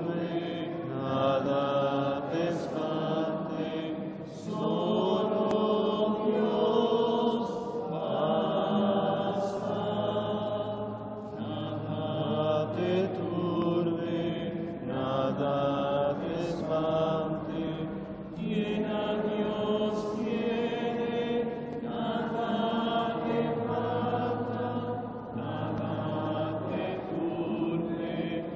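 Congregation singing a repetitive Taizé chant, sustained sung lines that pause briefly about every seven seconds as each phrase comes round again.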